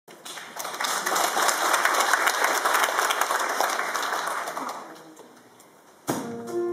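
Audience applauding, with many hands clapping, fading out after about five seconds. About a second before the end, a string ensemble starts playing with a sudden sharp attack and held notes.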